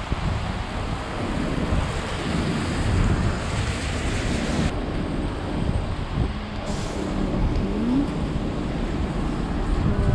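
Heavy rain falling on a wet paved street, with wind buffeting the microphone and road traffic going past. A short rising engine tone comes in about eight seconds in.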